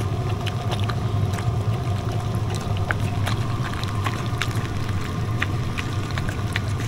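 A motor running steadily with a low hum, with many light ticks scattered over it.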